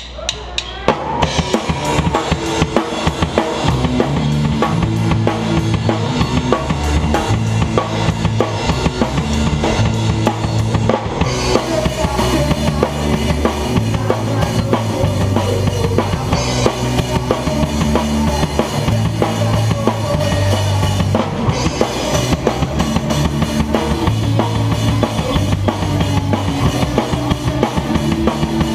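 Rock band playing: a drum kit keeps a steady driving beat of kick and snare, with low bass notes moving underneath.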